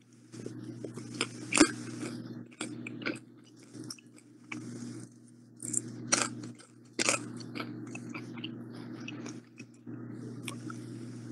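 Irregular crunches and clicks, some in short clusters, over a steady low hum.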